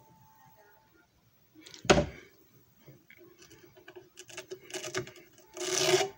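Handling noises at a JFJ Easy Pro disc repair machine: a sharp thump about two seconds in, then a steady low hum with light clicks, and a loud scraping burst near the end.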